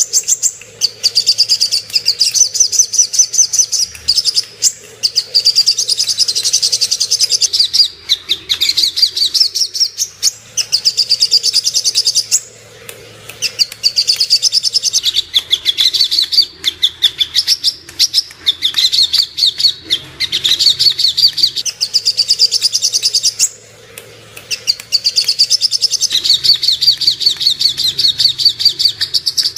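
Sogok ontong (songon) sunbird singing: long fast runs of high, sharp chirps, broken by brief pauses near the middle and about three quarters of the way through.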